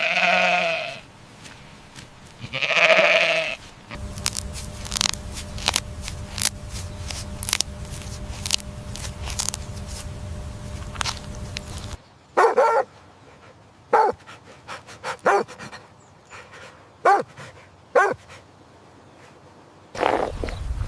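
Animal calls: two long pitched calls about three seconds apart, then several seconds of dense clicking and tapping over a steady hum, then a run of short, sharp yelps.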